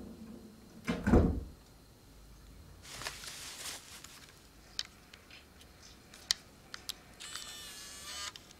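A door shutting with a heavy thump about a second in. Then a small handheld video camera is handled: a rustle, several sharp clicks of its controls, and a short whir near the end.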